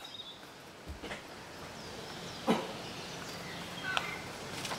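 Young dogs playing: one sharp, loud yelp or bark about halfway through and a shorter yip about four seconds in, with faint bird chirps in the background.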